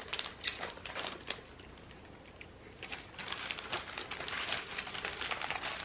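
Crinkling of a small plastic snack pouch of pretzel Goldfish crackers being handled and opened, in two spells with a short lull between.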